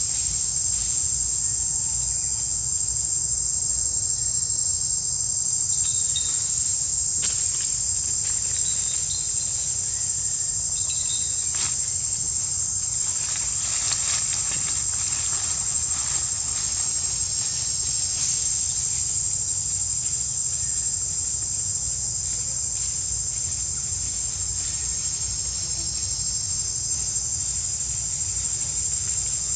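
A steady, high-pitched insect chorus, unchanging in pitch or level, over a low rumble, with a few faint clicks.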